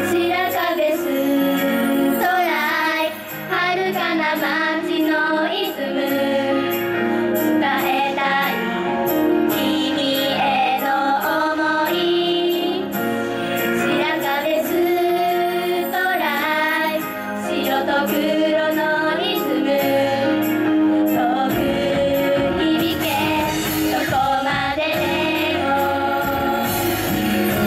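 Girls' idol group singing together into handheld microphones over a pop backing track, amplified.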